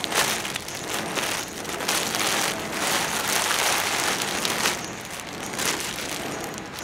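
Plastic courier mailer bag crinkling and rustling in the hands as it is pulled open and a product in a clear plastic wrapper is taken out, with irregular crackles throughout.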